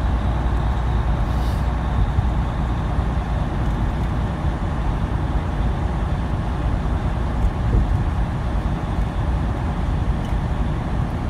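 Steady drone of a semi-truck tractor running bobtail, with no trailer, at highway speed, heard from inside the cab: diesel engine and road noise, heaviest in the low end.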